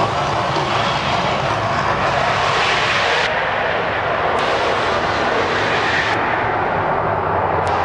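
Loud, steady roar of gas-fed flame bursts shooting from an artificial volcano. The high hiss in the roar drops away about three seconds in, comes back a second later, and drops away again about six seconds in.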